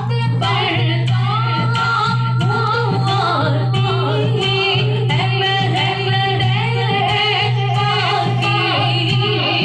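A woman chanting a naat, a melodic devotional recitation, with a steady low hum beneath her voice.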